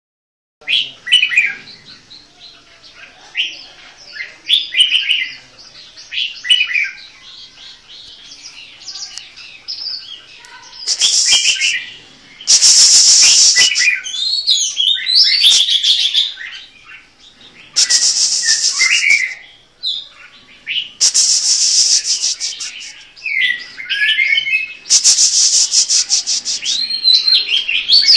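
Caged songbirds singing: varied, quick chirping phrases, broken by several loud, fast rattling trills that each last one to three seconds, the longest near the middle and toward the end.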